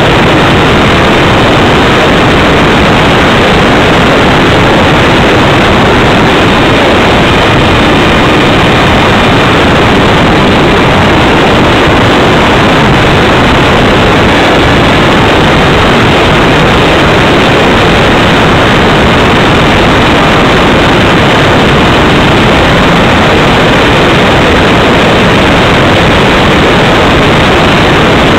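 Loud, steady rush of airflow and electric motor noise from a camera riding on a Radjet 800 RC plane in flight, with its pusher propeller running on a 4S battery; the sound overloads the small microphone without a break.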